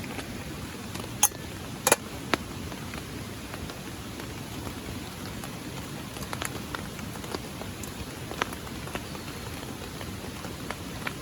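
Rain falling as a steady hiss, with scattered sharp drips striking close by, the loudest few between one and two and a half seconds in.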